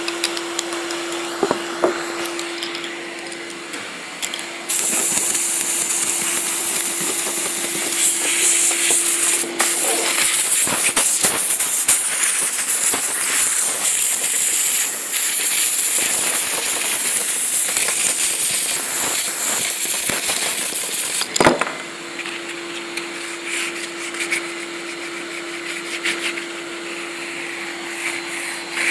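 Compressed-air blast nozzle blowing old paint off a wooden door: a loud, even hiss that starts abruptly about five seconds in and stops with a click about twenty-one seconds in. A steady hum and scattered light knocks come before and after it.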